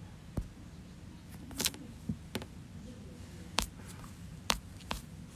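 Light, irregular clicks and taps of fingers on a phone held close to the microphone, about seven in five seconds, over a faint low hum.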